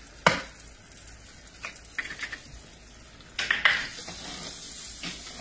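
Eggs frying in butter in a nonstick skillet, with sharp knocks and taps as another egg is cracked into the pan; from about four seconds in, a steady high sizzle.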